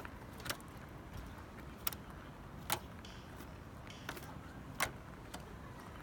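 Pileated woodpecker tapping its bill against a Tesla Model 3: about six single, sharp taps at uneven spacing, two of them louder than the rest.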